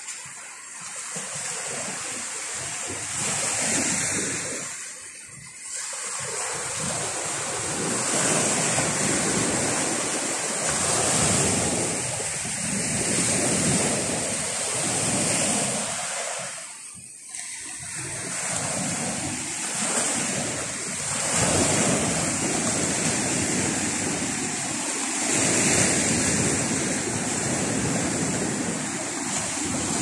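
Rough Baltic Sea surf breaking and washing up a sandy beach, a steady rushing that swells and eases with each wave, with brief lulls about five and seventeen seconds in.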